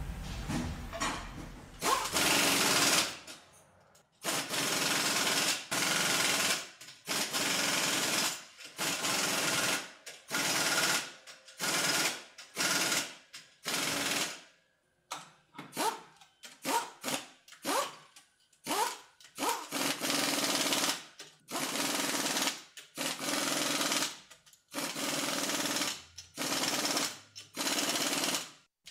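Pneumatic impact wrench running in repeated bursts of about a second with short gaps between, rattling and hissing as it drives bolts.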